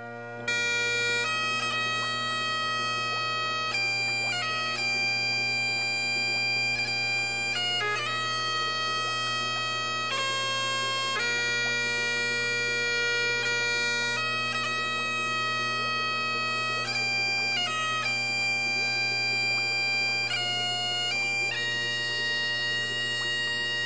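Bagpipe playing a slow tune, long held melody notes over a steady drone, starting about half a second in.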